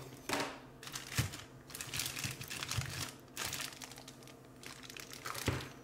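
Clear plastic bag crinkling in irregular bursts as it is picked up and handled.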